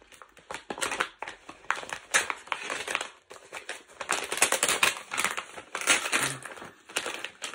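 Plastic and paper packaging crinkling and rustling in irregular bursts as a heavily wrapped mail package is worked open by hand.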